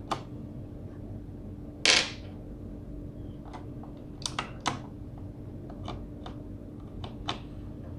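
Sparse small plastic clicks and taps as keycaps are pulled off and pressed onto the mechanical keyboard's Cherry MX switch stems, with one louder brief rustle about two seconds in and a faint steady hum underneath.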